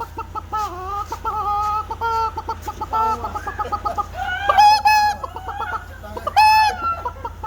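A man imitating a chicken with his voice: a run of short, wavering clucking calls, then two louder, drawn-out calls about two-thirds of the way in.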